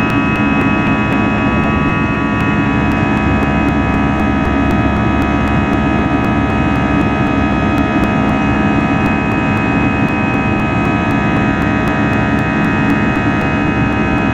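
Airbus A320's turbofan engines running steadily during the climb after takeoff, heard from inside the cabin by the wing: a constant roar with several steady whining tones over it.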